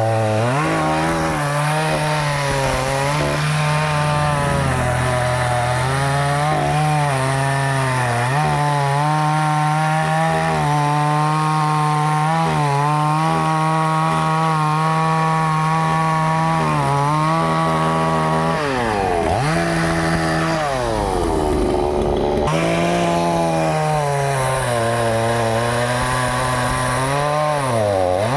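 Two-stroke chainsaw running at high revs and cutting through wood, its pitch dipping slightly now and then under load. About twenty seconds in, the engine note drops low and then climbs back up to full speed.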